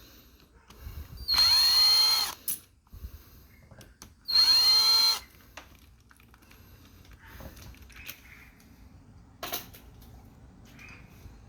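Power drill run twice in short bursts of about a second each, its whine rising as the motor spins up at the start of each burst. A short sharp click follows later.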